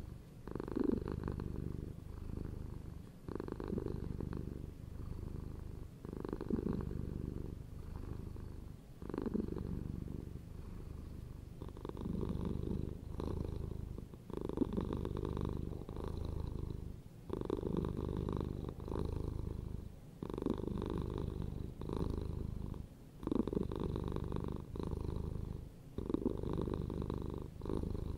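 Domestic cat purring: a steady low rumble that swells and fades with each breath, about every three seconds.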